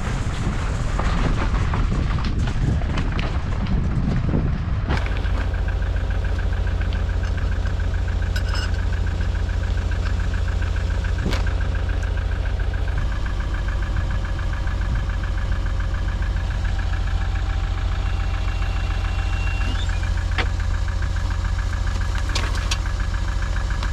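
An engine running steadily, with a deep low rumble and a constant high whine. For the first five seconds a rough rushing noise covers it, then it changes abruptly to the even engine sound.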